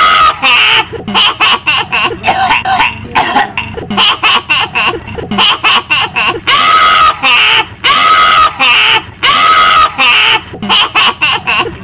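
Shrill witch's cackle from a horror sound effect: long high held notes breaking into rapid staccato bursts of laughter, repeated over and over.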